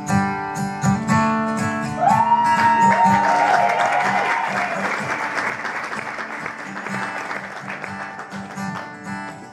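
Acoustic guitar strumming steadily. About two seconds in, the audience breaks into whoops and applause, which fade out over the following seconds while the guitar plays on.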